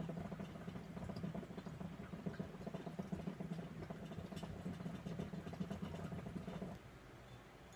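Hookah water bubbling steadily as a long draw is pulled through the hose, a low rapid gurgle that stops abruptly about seven seconds in when the draw ends.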